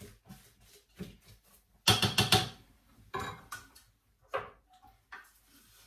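Thermomix spatula working the mixture in the stainless-steel mixing bowl: a run of short, faint scraping strokes, then two louder clattering knocks about two and three seconds in and a few small clicks near the end.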